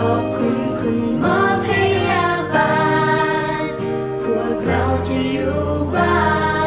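Background music: a song with singing, its voice holding long notes over sustained chords.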